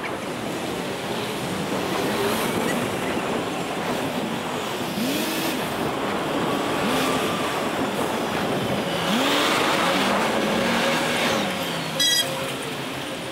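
City street traffic heard close by: cars and trucks passing, their engine notes rising and falling as they pull away. A short, loud, high-pitched beep near the end.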